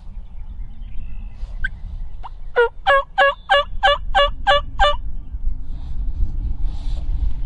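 Turkey calling: a run of about eight evenly spaced, rasping notes over about two and a half seconds, starting about two and a half seconds in, over a steady low rumble.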